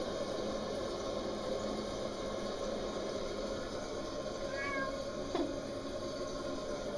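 Domestic cat giving one short, high meow about two-thirds of the way in, followed a moment later by a brief sharp sound.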